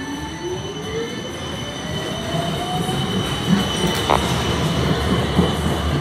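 D-class Siemens Combino tram passing close by, its motor whine rising in pitch over the first three seconds as it gathers speed, over a steady high whine and the rumble of wheels on the rails. A sharp click about four seconds in.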